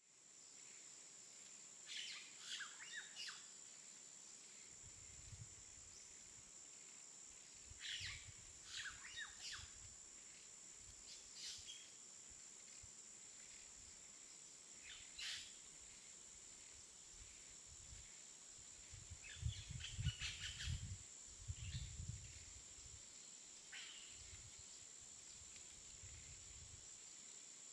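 Birds chirping faintly in short runs of calls every few seconds, over a steady high-pitched whine and some soft low rumbling.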